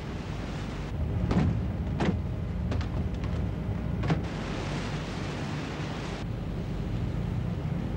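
A frigate's engines rumble steadily under rushing sea water from its wake and along the hull. A few sharp knocks or slaps come over it, and a louder rush of water lasts about two seconds from around four seconds in.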